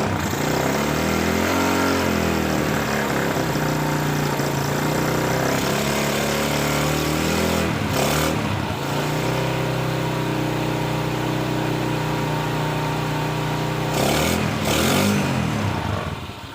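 Motorcycle engine, a Yamaha 5TP four-stroke single, running after being fitted back in, idling steadily with a few short throttle blips.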